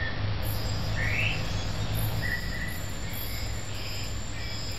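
Night-time nature ambience: a steady high insect chirring with short chirping calls every second or so, some rising and some level, over a steady low rumble.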